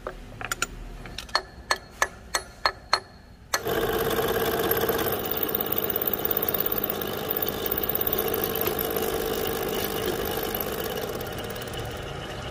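Face-milling cutter on a milling machine cutting a flat along a steel tube clamped in a vise: a steady cutting noise with a hum that starts about three and a half seconds in and runs on. Before it comes a run of about eight sharp metallic clicks.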